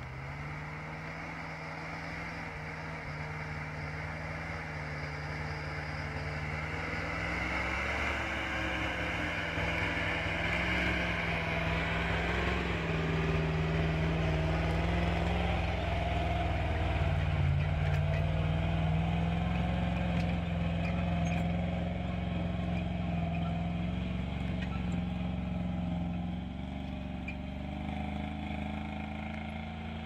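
GAZ-66 army truck's V8 engine running under load as it pulls a full load of logs through deep snow on chained tyres, growing louder as it passes close by around the middle and fading as it moves away.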